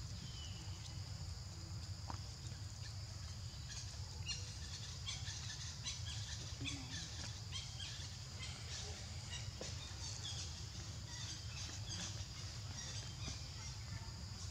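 Steady high drone of insects, with a run of many short, high chirps and squeaks from about four seconds in, over a low rumble.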